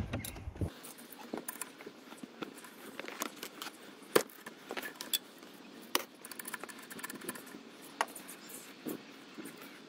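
Ratchet with a 13mm socket undoing the nut on the alternator's battery-cable terminal: irregular light metallic clicking, with a few louder clicks.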